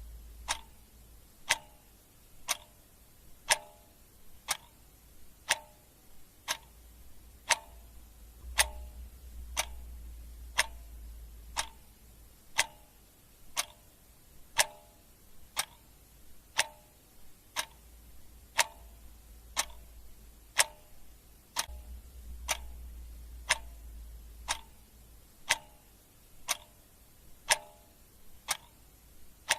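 Clock ticking steadily at about one tick a second, the ticks alternating slightly in tone as tick and tock. A faint low hum comes and goes beneath the ticks.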